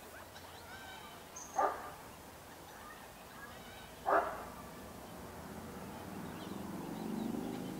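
Two short, sharp animal calls, about two and a half seconds apart, over quiet outdoor background; a low engine-like hum builds near the end.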